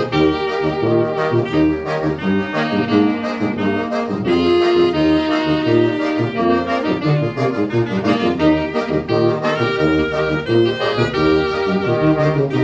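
Small wind ensemble of tuba, slide trombone, saxophone and clarinet with accordion, playing a tune together in harmony, the tuba carrying a moving bass line beneath the melody.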